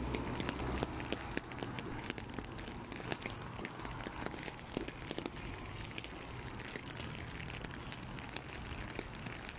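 Rain falling on an open umbrella overhead: a dense, irregular ticking of drops hitting the canopy over a steady low rumble.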